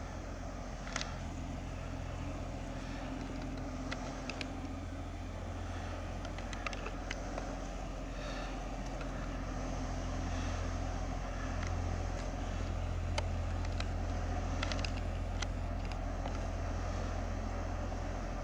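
Canal barge's diesel engine running steadily as the barge moves slowly out of a lock: a low hum that grows a little louder from about halfway through, with a few short clicks over it.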